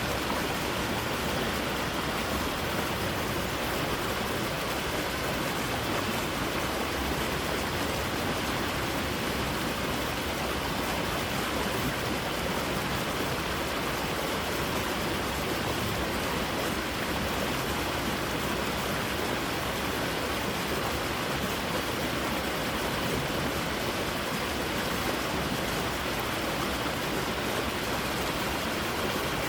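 Creek water rushing over rocks: a steady, even rush.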